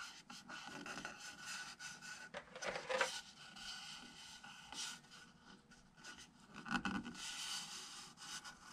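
Fingers rubbing and scraping over the surface and cracked rim of an epoxy-filled oak bowl, with a few soft clicks; the bowl is coming apart along its crack.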